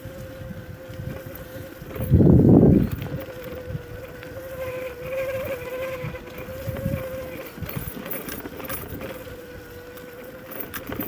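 Self-built electric bike's motor running under power while riding, giving a steady whine over the rumble of the ride. A brief loud low rumble comes about two seconds in.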